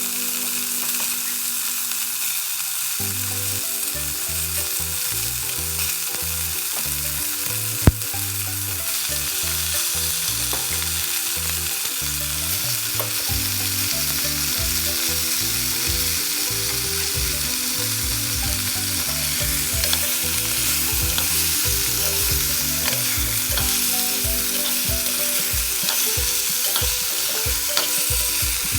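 Food frying in hot oil in a pan, with a steady sizzle while it is stirred. One sharp knock comes about eight seconds in.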